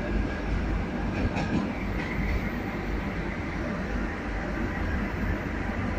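ALCO diesel-electric locomotive heard from inside the driver's cab: a steady, loud low rumble of the running engine and machinery, with a few faint clicks about a second and a half in.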